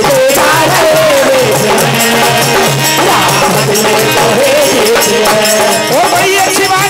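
Live Indian devotional bhajan music: a wavering melody line over two-headed hand drums and the jangling of wooden kartal clappers.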